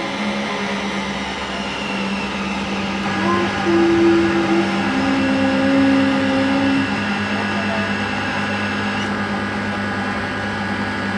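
Live noise music: a dense wash of noise over steady droning tones, with short held notes that come and go and a few brief pitch glides.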